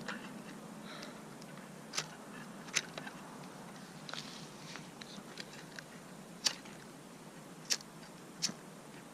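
A lighter clicking several times at irregular intervals, failing to catch and light a firework's fuse.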